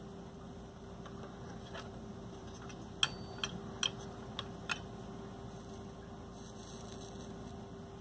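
Steady low electrical hum, with about five small sharp ticks in quick succession near the middle.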